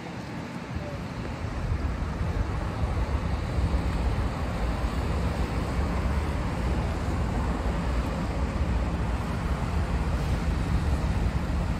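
Wind buffeting the microphone with a choppy low rumble, over the steady hiss of traffic on wet roads. The rumble builds over the first two seconds.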